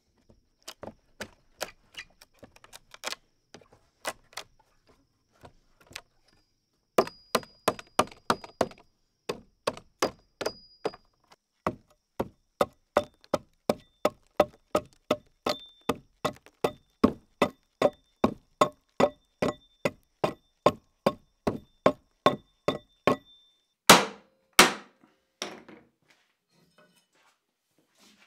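Hammer blows on a chisel knocking out the thin fingers of wood left between saw kerfs in a pine 2x12, the waste splitting off in chips; steady sharp strikes about two a second, with two heavier blows near the end.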